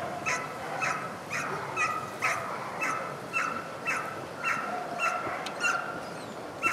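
A dog barking over and over at an even pace, about two barks a second.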